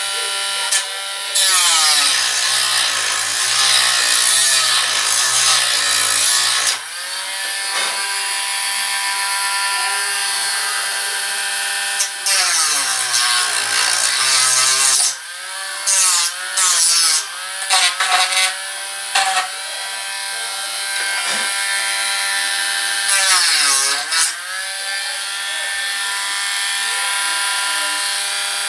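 Dremel Stylus cordless rotary tool with a sanding wheel running with a steady whine and sanding wood, with gritty rasping stretches as the wheel bites. The motor's pitch drops several times as it is pressed down onto the work.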